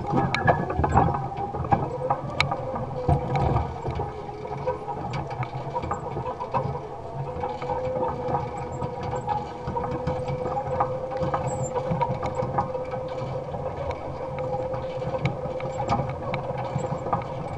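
Electric-powered Allis-Chalmers Model G tractor working a basket weeder: a steady whine that rises slightly over the first few seconds and then holds level, over rattling and knocking from the machinery that is heaviest in the first four seconds.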